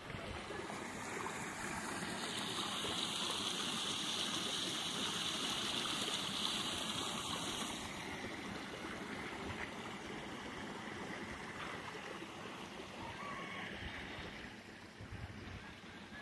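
Storm runoff after a hailstorm: muddy water rushing past piles of hail in a steady flow, which grows quieter after about eight seconds.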